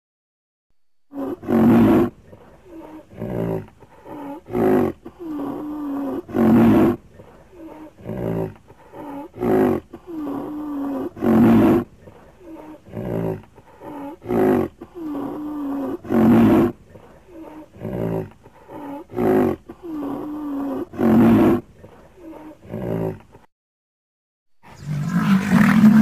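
Animal calls used as a woolly rhinoceros sound effect: a long series of low calls, loud ones about every two and a half seconds with softer ones between. They start about a second in, break off briefly near the end, and then one more call begins.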